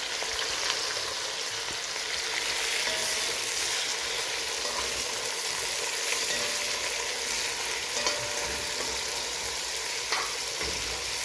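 Chopped onion frying in hot oil in a kazan, a steady sizzle with a few sharp knocks against the pot now and then.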